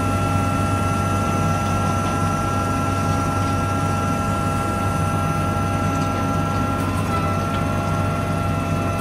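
Tractor running steadily while pulling a Väderstad Rapid seed drill, with a steady high whine over the engine from the drill's seed fan blowing seed down the tubes.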